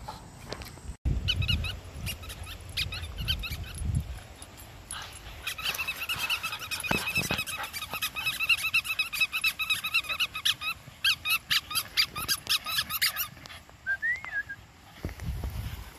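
Several small dogs yapping in quick, high-pitched yips, many a second, while they chase and play. There is a short rising whine near the end.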